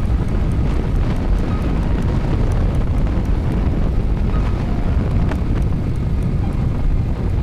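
Steady, loud low rumble of riding a motorcycle, with wind buffeting the phone's microphone over the engine and road noise.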